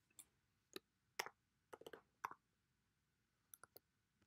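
Faint computer keyboard keystrokes: scattered taps through the first two and a half seconds, then three quick taps near the end.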